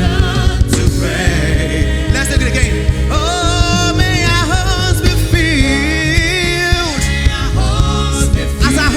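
Gospel worship song: voices singing a melody with vibrato over a steady bass line and drum beat.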